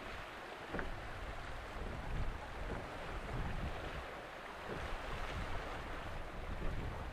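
Wind gusting on the microphone, uneven low rumbles over a steady outdoor hiss, with a faint click about a second in.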